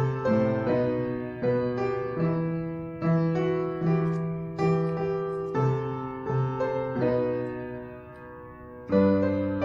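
Piano playing a slow hymn introduction in E minor: struck chords that fade away one after another, with one chord held and dying away before a fresh, louder chord near the end.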